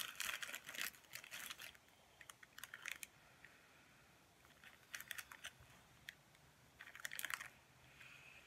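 Small clear plastic bag crinkling as it is handled, in four short spells of crackly rustling with quiet between them.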